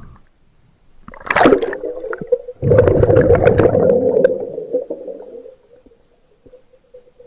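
A spearfisher breathing hard through a snorkel, picked up by a waterproof camera. About a second in comes a short gurgling breath that drops in pitch, then a louder, longer breath with a steady hollow tone that fades away.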